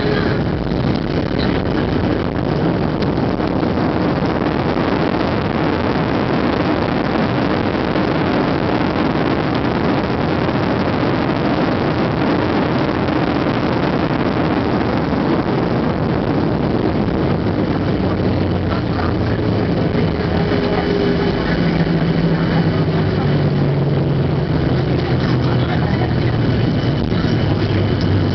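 Cabin noise of a Boeing 737-700 on its landing rollout: a loud, steady rush of its CFM56 engines and airflow while the thrust reversers are deployed. In the second half the rush eases and a low engine hum with steady tones comes through as the jet slows.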